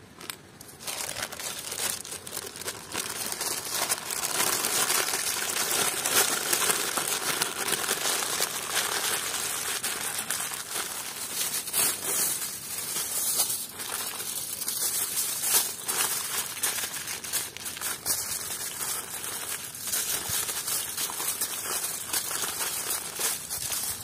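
Crinkly material being handled, crinkling and rustling continuously with many small crackles, starting about a second in.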